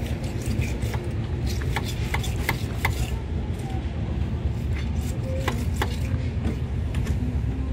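Thin steel rod clicking against a radiator core as it is pushed down through the tubes to clear them: a cluster of sharp, slightly ringing metallic clicks about two seconds in and two more a little past halfway, over a steady low rumble.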